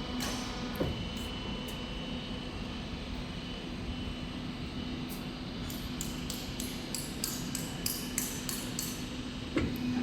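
Metal roofing-tile roll-forming machine running with a steady hum; from about halfway through, light metallic clicks come about three to four times a second.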